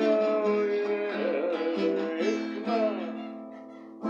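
Acoustic guitar strummed and ringing as accompaniment to a song, with a voice holding a sung note at first. The sound dies away near the end, and a fresh strum starts right as it closes.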